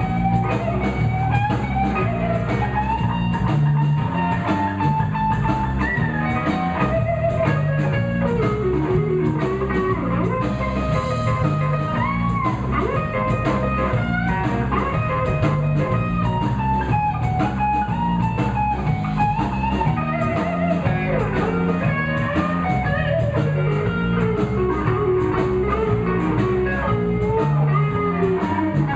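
Live blues band in an instrumental break: an electric guitar solo over bass and drum kit keeping a steady beat.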